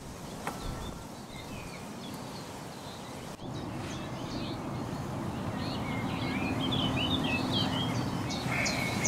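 Small birds chirping and twittering over steady outdoor background noise. The calls are sparse at first, then grow busier and louder from about a third of the way in.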